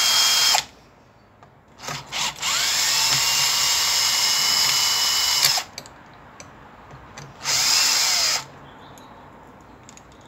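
Cordless drill driver backing out the end-plate screws of an air suspension compressor's exhaust valve housing. The motor whines in separate runs: it stops just after the start, gives two brief blips about two seconds in, spins up for a run of about three seconds, then makes a short run near the end that winds down in pitch.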